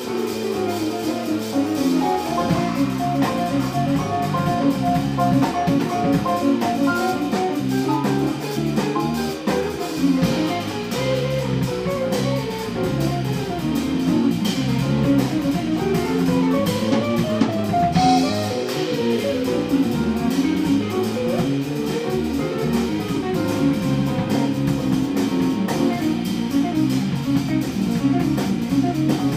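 A jazz-rock band playing live: electric guitar, electric bass, drum kit and piano. Over the drums and bass, a melody line slides up and down in pitch.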